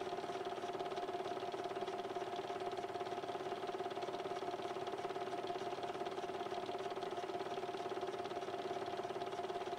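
Film projector running, heard as a steady mechanical whir and hum under faint hiss.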